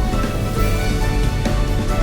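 Background music with a strong bass and a steady beat.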